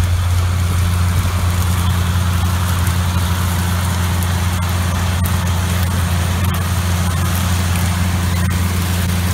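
John Deere 9400 four-wheel-drive tractor's Cummins N14 six-cylinder diesel running steadily under load as it pulls an 84-foot harrow: a constant low drone with a broad hiss above it.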